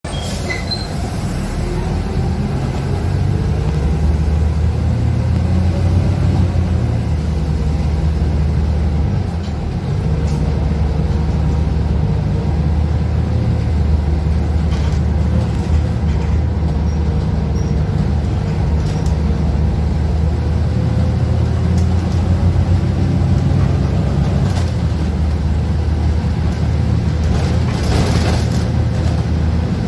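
Cabin noise of a Zhong Tong articulated bus with a Doosan GL11K CNG engine and Allison automatic gearbox under way: a steady low engine and road rumble that grows louder as the bus pulls away and dips briefly about nine seconds in. A few short noisy bursts come near the end.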